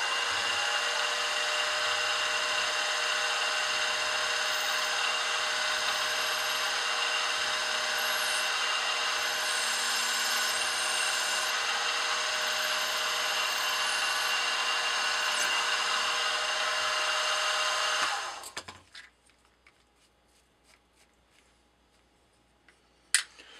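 A small milling machine's spindle motor runs steadily while a twist drill bores a small hole in a brass model-engine cylinder head. About three-quarters of the way through, the motor shuts off and winds down. Then come a few faint ticks and one sharp click near the end.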